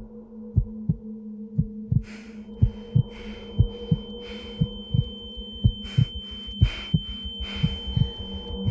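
Heartbeat sound effect: paired lub-dub thumps about once a second, quickening near the end, over a low steady hum. A high steady ringing tone comes in about two seconds in, with swells of hiss between the beats.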